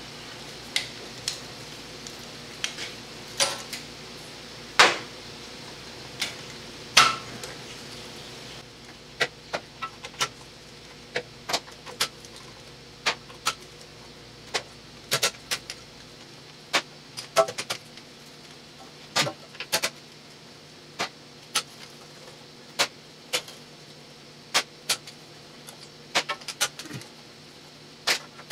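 Speed-handle socket wrench spinning out the oil pan bolts of a Chrysler 727 automatic transmission, making irregular sharp metallic clicks and clinks, louder and more frequent in the first few seconds.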